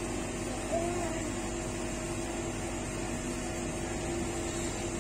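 Steady hum from a rolled ice cream machine's cold-plate refrigeration unit, running while ice cream is spread and worked on the plate.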